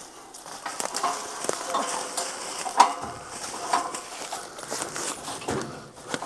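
Irregular knocks, clatter and scraping of the hunting blind's parts being handled, with the sharpest knock near the middle.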